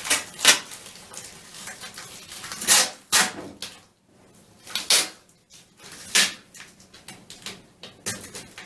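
Masking tape being pulled off its roll in several short rasping strips, with a plastic Ziploc bag crinkling as it is taped around a shower head.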